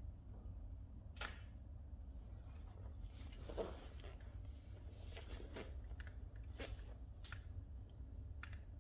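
Oak logs burning in a wood-burning fireplace, crackling with irregular sharp pops a second or so apart and a soft rush of flame partway through.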